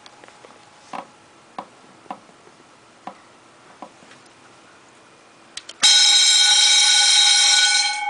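Several sharp clicks from the buttons of a plug-in digital timer being pressed. About six seconds in, a Wheelock electric vibrating bell starts ringing loudly and rings for about two seconds. It cuts off near the end, and its gong goes on ringing as it dies away.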